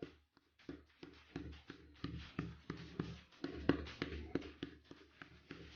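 A quick, irregular run of light taps and clicks, several a second, as of hands handling things.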